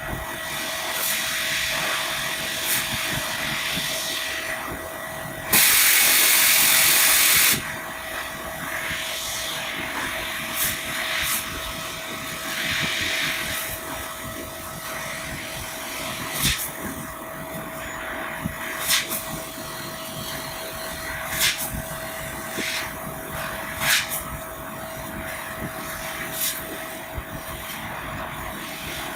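EFC3015 laser cutting machine cutting 2 mm aluminium sheet: a steady machine hum with a constant high tone, a loud hiss lasting about two seconds early on, and sharp clicks every two to three seconds.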